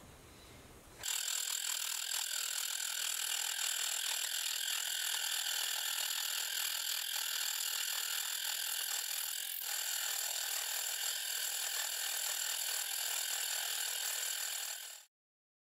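Milling machine's slitting saw cutting a slit into a metal mandrel tube: a steady, high-pitched cutting whine that starts about a second in and cuts off abruptly near the end.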